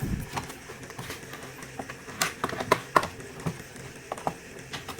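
Irregular small clicks and taps of hard plastic and metal parts being handled on an opened laptop.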